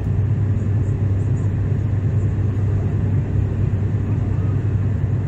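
Airliner cabin noise in flight: the steady, low drone of the engines and rushing air heard inside the passenger cabin.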